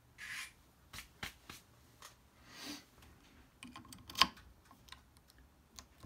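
Soft rustling and scattered light clicks of hands handling tools, then a cluster of small metallic clicks with one sharp click about four seconds in as a key blank in an impressioning grip is pushed into an old Corbin wafer padlock's keyway.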